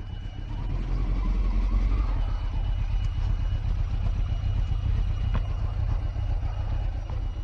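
Honda CBR900 Fireblade's inline-four engine running at low speed as the motorcycle rides over cobblestones, a steady low rumble with a few sharp knocks from the bike jolting on the uneven stones.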